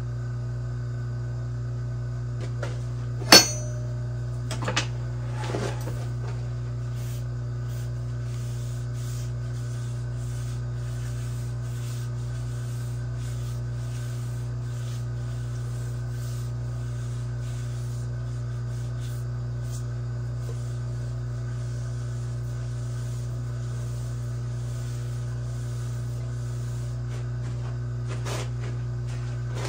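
Steady low motor hum from the vacuum pump holding the work on the lathe's vacuum chuck. There is a sharp click about three seconds in and a few soft knocks just after it.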